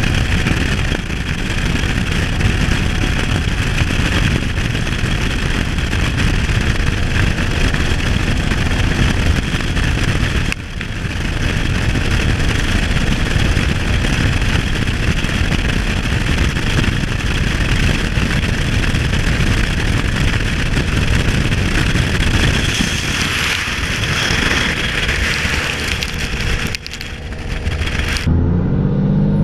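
Dodge Cummins inline-six turbo-diesel truck engine running hard under load, with turbo hiss and whistle over the engine. The sound changes abruptly near the end.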